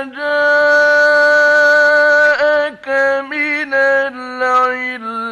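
A man chanting Quran recitation in the melodic mujawwad style, heard from an old radio recording. He holds one long steady note for about two seconds, then breaks into shorter, wavering ornamented phrases.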